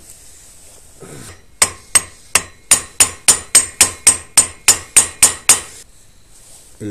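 Hammer striking metal in a run of about fourteen sharp, ringing taps, roughly three a second, after a short scrape. The taps are bending the lock-washer tab over the clutch basket nut of a motorcycle clutch to stop the nut loosening.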